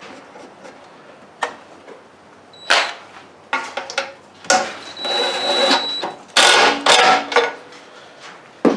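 Metal lawnmower engine parts being handled and fitted back together by hand: a series of clanks, knocks and scrapes, busiest in the middle, with a brief ringing metal tone and a last knock near the end.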